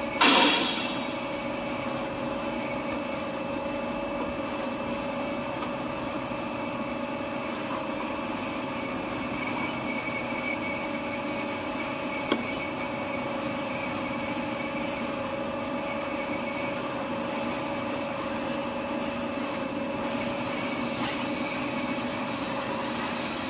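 Semi-automatic band saw cutting machine for Z-fold hand towel paper running with a steady hum of several tones. Just after the start the blade cuts through a log of folded towel paper in a brief loud burst of noise. A single sharp click comes about halfway through.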